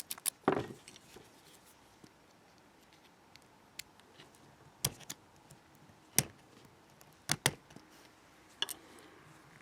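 Scattered sharp metallic clicks and ticks from a Sterling 6-pin oval lock cylinder being handled as the retaining clip is worked off the back of its plug.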